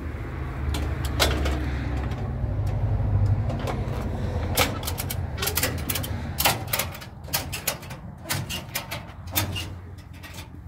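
A vehicle engine idling as a low, steady hum, strongest in the first half. From about halfway on, a run of sharp metallic clanks and rattles from the car trailer's fittings and chains as the car is secured.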